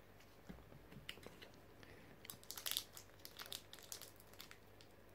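Foil wrapper of a Pokémon booster pack crinkling in the hands as the pack is gripped to be opened: short scattered crackles, loudest about two and a half seconds in.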